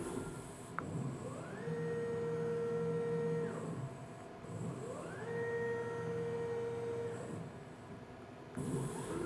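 CNC router axis drive motors jogging the head in two moves: each time a whine rises in pitch as the axis speeds up, holds steady for about two seconds, then falls as it slows and stops. A short click comes just before the first move.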